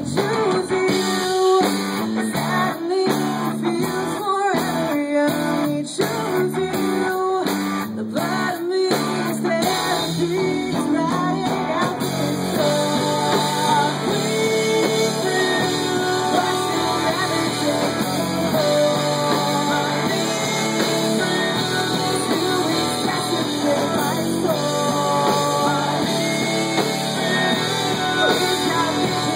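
Live rock band playing: electric guitar, drums and a singer on a microphone. For about the first ten seconds the band hits short stop-start stabs, then it plays straight through.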